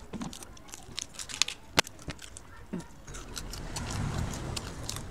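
Cooked crab shells cracking and crunching as the crab is broken apart by hand and bitten, a run of sharp clicks and snaps with one louder crack about two seconds in. A low rumble swells in the second half.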